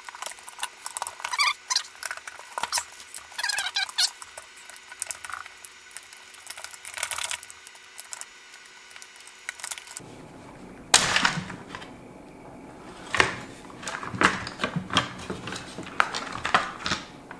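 Irregular clicks, taps and rattles of plastic housing parts and small hand tools being worked while prying apart a Stihl MS271 chainsaw's rear handle and fuel tank assembly, with one sharper, louder click about eleven seconds in.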